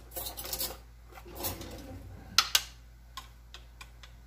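Plastic jar of chopped garlic being handled and opened: rustling and scraping as the screw lid is twisted off, then two sharp clicks a little over two seconds in, followed by a few light ticks.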